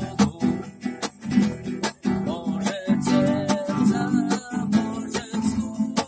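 Acoustic guitar strummed in a steady rhythm, chord after chord.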